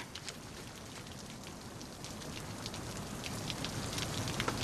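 Steady rain falling, with scattered drips ticking on hard surfaces; it grows a little louder toward the end.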